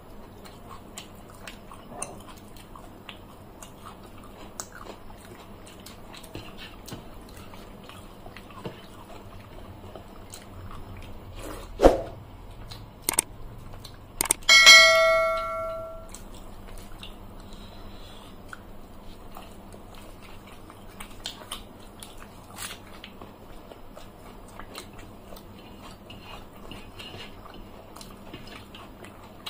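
Quiet eating sounds throughout: people eating with their hands, chewing and smacking, with small clicks. About halfway there is a knock, then a sharp metallic clink from a metal dinner plate that rings for about a second and a half.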